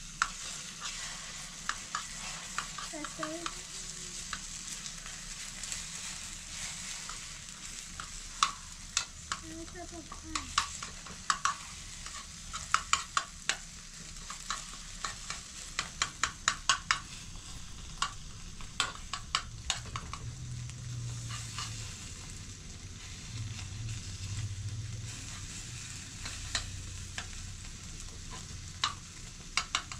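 Food sizzling in a pan on a small gas burner while a metal spoon stirs it, scraping and tapping against the pan. The taps come in a quick run in the middle.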